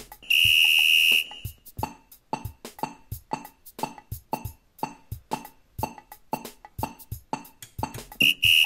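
IHM X-Train Timer's buzzer in pacer mode at 120 beats per minute. A long steady high beep comes about a third of a second in, then short beeps at two per second, and another long beep near the end.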